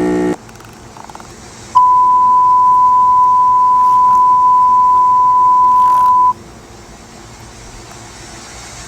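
Emergency Alert System alarm tones. A buzzy tone cuts off just after the start. About a second and a half later a single steady high beep comes on, holds for about four and a half seconds, and stops abruptly.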